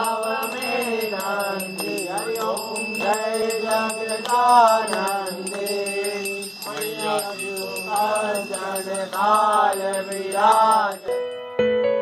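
Devotional aarti chanting by voices, with a hand bell rung in a fast steady rhythm throughout. About eleven seconds in, the chant stops and soft piano music begins.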